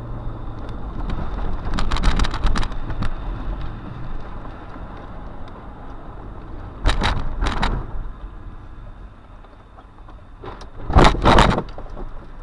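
Car driving on a wet road, heard from inside: steady engine and tyre hum under road noise, with brief loud swishes of noise about two, seven and eleven seconds in.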